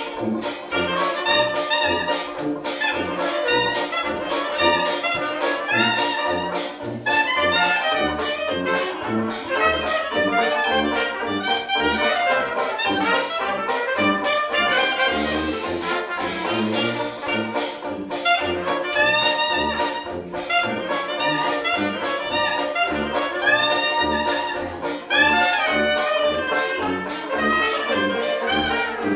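Small New Orleans-style trad jazz band playing live: trumpet and clarinet carry the melody over a sousaphone bass line on the beat, with banjo and washboard keeping a steady rhythm.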